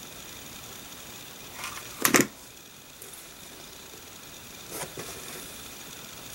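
Handling noises while hot-gluing felt flowers and trim inside a train case. A sharp clatter comes about two seconds in and a softer knock near five seconds, over a faint steady hum.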